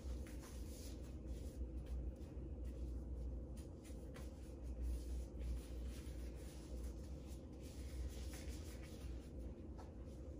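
Faint rustling and soft crinkling of a disposable glove being worked onto the hand, over a steady low hum.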